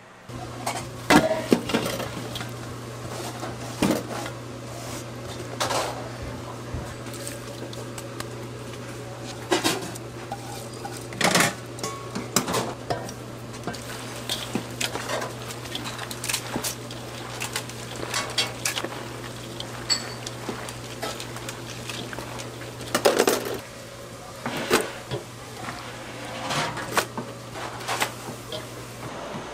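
Metal kitchen utensils and dishes clattering in irregular clanks and knocks, over a steady low hum.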